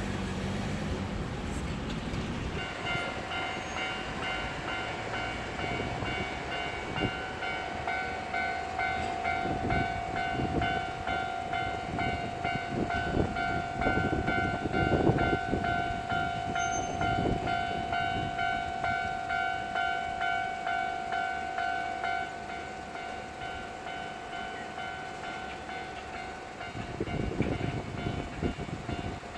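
Japanese railway level-crossing warning bell ringing in a steady repeating ding, starting a few seconds in. A Keio Inokashira Line train passes through the crossing underneath it, its rumble loudest about halfway through. The bell grows fainter in the last third.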